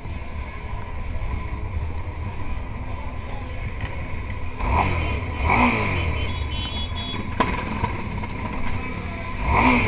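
Motorcycle engines running at low speed in slow traffic, with quick throttle blips whose revs fall away: two about five seconds in and a louder one near the end.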